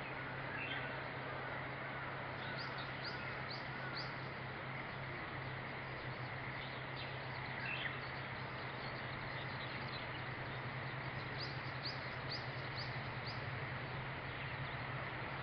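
Japanese honeybees humming steadily at the hive entrance, with a Japanese bush warbler calling over it: two runs of about five quick, high, falling notes, a few seconds in and again about eleven seconds in.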